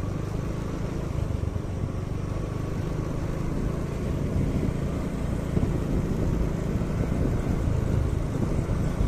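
A vehicle engine running steadily, heard from on board while moving along slowly, with a rumbling drone that grows slightly louder and rougher about halfway through.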